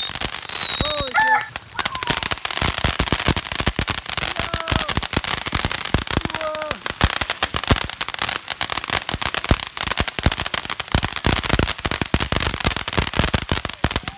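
Ground firework fountain spraying sparks with dense, rapid crackling throughout. A few short falling whistles cut through it in the first six seconds.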